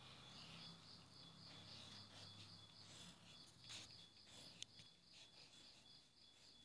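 Near silence: a faint, high-pitched chirping pulses about four to five times a second, with a few soft pencil scratches on paper and one sharp click a little past the middle.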